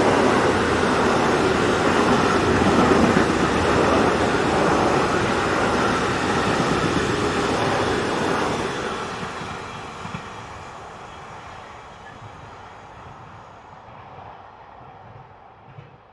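Freight train rolling along the rails, loud at first, then fading away steadily from about eight seconds in until only a faint rumble is left.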